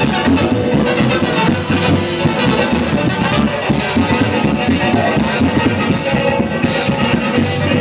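Loud brass-band dance music with drums, playing steadily.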